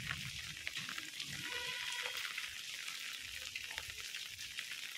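Steady hiss of rain falling on wet pavement.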